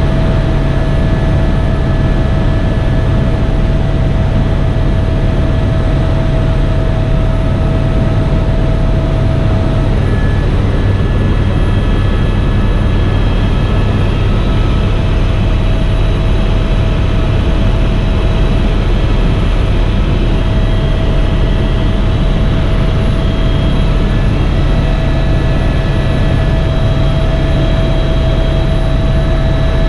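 Tour helicopter in flight, heard from aboard: steady rotor and turbine engine noise with a deep low drone and a steady whine that drops out for a few seconds partway through.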